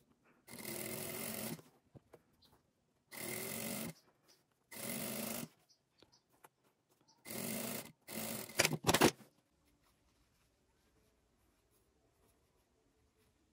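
Industrial straight-stitch sewing machine stitching in four runs of about a second each, then a few shorter spurts, as a narrow double-folded hem is sewn along a fabric strip.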